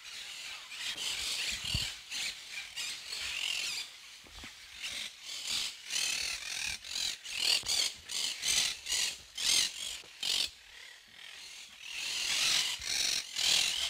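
Footsteps crunching on a gravel path, about two steps a second.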